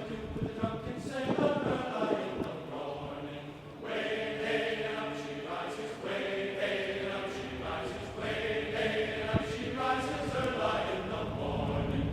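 A group of voices singing together in long held notes, the phrase changing every two seconds or so.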